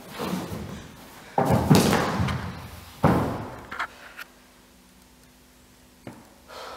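A dancer's body thudding and scuffing on a wooden floor as she drops from hands and knees to lying on her back: a few heavy thuds in the first three seconds, the loudest about one and a half and three seconds in, followed by a couple of light taps.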